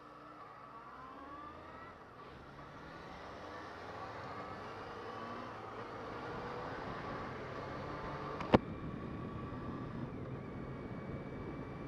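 Motorcycle engine running faintly, rising in pitch several times as it pulls away and gathers speed. A single sharp click comes about eight and a half seconds in.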